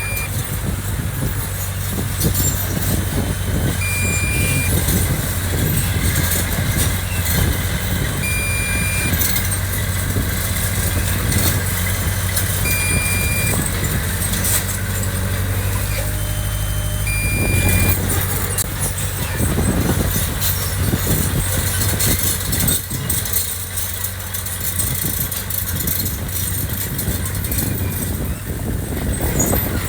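Heavy diesel earthmoving machine running steadily under work, with a short high warning beep repeating about every four and a half seconds that stops a little past halfway through.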